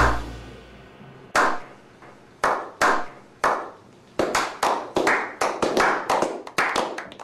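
A small group of men doing a slow clap: single claps spaced about a second apart at first, quickening about four seconds in to steady clapping at roughly three claps a second.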